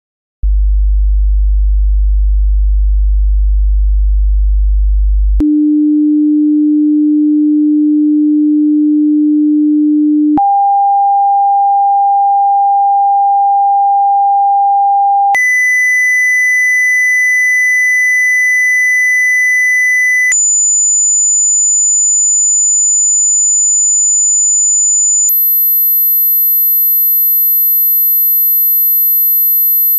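Headphone test signal: six steady pure tones, each lasting about five seconds, stepping upward from a deep bass hum through low, middle and upper tones to a very high whine.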